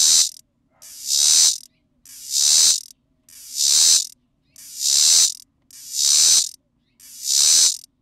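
Male Robinson's cicada (Tibicen robinsonianus) singing: a high-pitched call in repeated phrases, about one every 1.2 seconds, each swelling from quiet to loud over most of a second and then cutting off sharply.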